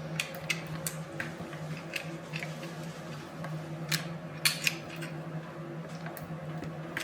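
Pneumatic step machine in use, its pedals and frame giving off irregular clicks and knocks over a steady low hum.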